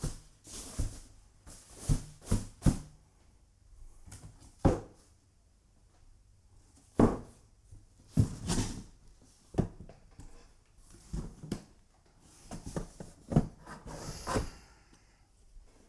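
Handling noise while unpacking a keyboard: irregular bumps, knocks and rustles as the instrument and its packaging are moved about, with a few sharper knocks and quieter pauses between them.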